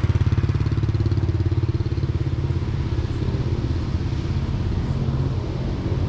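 Motor scooter engine running close by with a fast, even putter, strongest in the first couple of seconds and easing off from about three seconds in.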